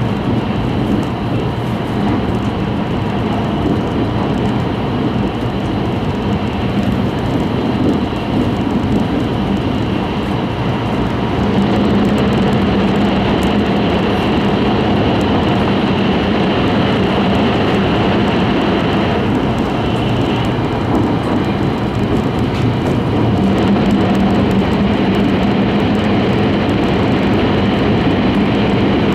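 Cabin running noise of an E5-series Shinkansen at high speed: a steady rumble and rush with a low hum, heard from inside the passenger car. It grows louder about a third of the way in and stays louder while the train runs through a tunnel.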